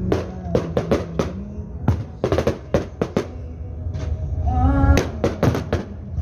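Fireworks bursting: an irregular run of sharp bangs and cracks, some in quick clusters, over a steady low hum.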